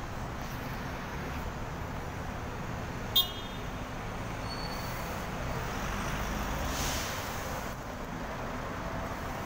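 Road traffic at a busy junction: a steady hum of buses and cars driving past, swelling slightly as a vehicle goes by near the end. About three seconds in, one very short, sharp, high-pitched beep stands out above it.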